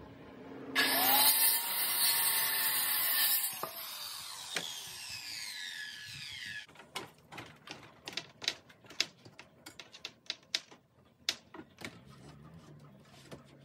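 Corded circular saw started and cutting through a wooden board for about three seconds, then switched off, its blade whining down in pitch as it slows over the next few seconds. After that comes a run of sharp, irregular knocks and clicks.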